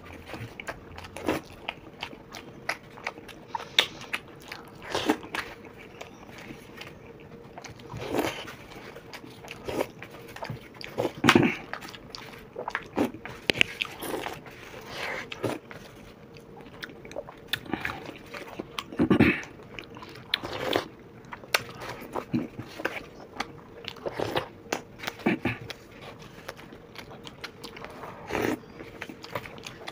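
Close-miked eating: two people eating spoonfuls of dahi vada, soft lentil dumplings in yogurt, with wet chewing and mouth smacks and spoons clicking and scraping on plates. The sounds come as irregular short clicks and smacks, a few each second.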